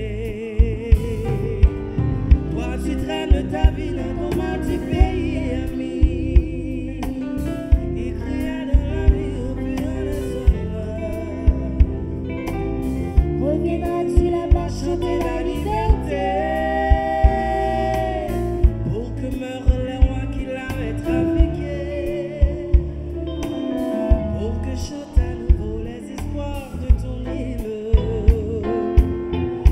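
A man and a woman singing a duet live over band accompaniment with a steady beat, their held notes wavering with vibrato.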